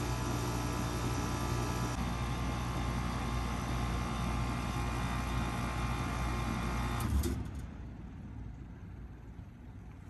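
2004 Goodman PHKJ042 3.5-ton packaged heat pump running in cooling mode with a steady hum, then shutting down about seven seconds in: a brief clunk and the hum cuts off, leaving a much fainter sound.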